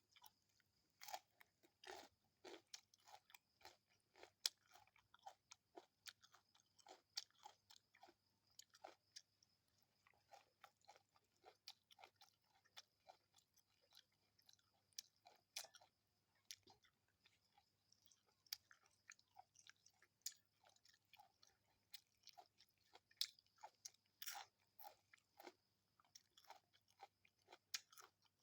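A person eating close to the microphone: steady chewing with frequent small crunches, smacks and clicks, coming irregularly several times a second.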